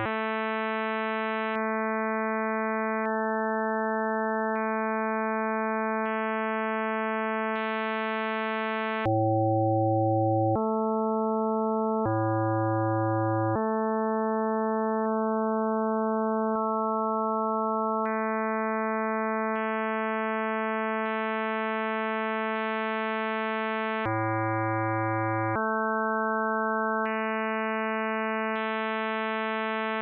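Computer-synthesized chords of pure sine tones, each sounding the weight spectrum of a compact Lie group representation restricted to Kostant's principal SU₂, tuned so the fundamental representation of SU₂ gives the A at 110 Hz. A new steady chord begins about every one and a half seconds, some with a deep low note, others thinner and higher.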